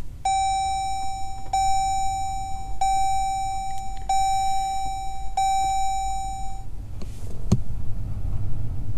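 Jeep Grand Cherokee SRT instrument-cluster warning chime with the ignition on and the engine not started: one steady mid-pitched tone sounding five times in a row, each a little over a second long with short gaps, then stopping. A single click follows about a second later.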